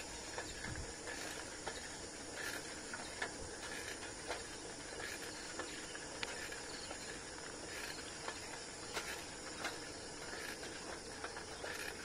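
Faint steady hiss of riding a bicycle along a road, tyres rolling and air passing the phone's microphone, with scattered light clicks and rattles.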